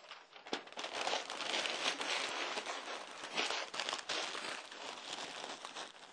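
Packing paper crumpling and crinkling as it is rolled by hand around a mug, a dense crackling that starts about half a second in and fades near the end.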